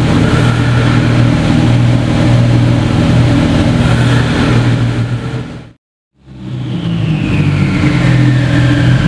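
Porsche 911 GT2 RS Clubsport's twin-turbo flat-six running steadily and loudly while parked. The sound drops out for a moment a little past halfway, then carries on at the same steady level with a faint falling whine above it.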